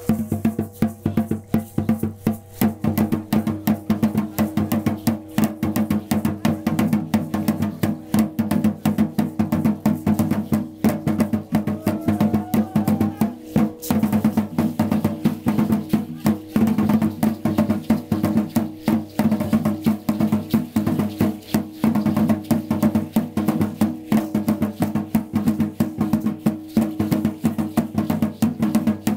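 Percussion music for a costumed dance: steady drumming with a dense, fast clatter of sharp strikes over a steady low hum. A brief rising whistle-like tone comes about halfway through.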